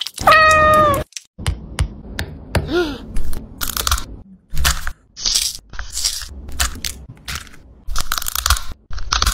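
A cat meows once near the start, with a slight fall in pitch, and gives a shorter meow about three seconds in. Then come bursts of sharp crackling and crunching as eggshell is cracked and picked off an egg.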